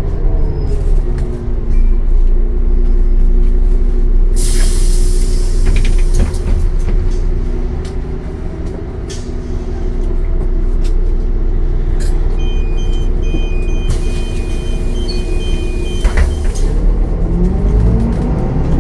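Solaris Urbino 10 II city bus with its MAN D0836 inline-six diesel: the engine note falls to a steady idle as the bus stops, with a loud hiss of compressed air about four seconds in. From about twelve seconds a repeating electronic beep sounds alongside a second air hiss, and near the end the engine note rises as the bus pulls away.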